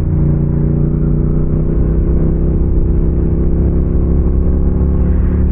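Motorcycle engine running at a steady speed, with road and wind noise.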